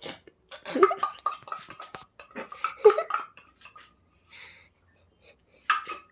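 A person's voice in two short bursts without clear words, about a second in and again near three seconds, with light clicks and knocks between them.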